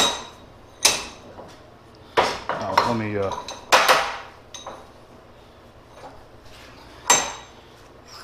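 Sharp metallic clanks, about six of them, as the chromed rod of a freshly rebuilt hydraulic cylinder is pushed in and pulled out by hand in a hand-stroke test of the rebuild. There is a quiet spell between the first cluster and the last clank.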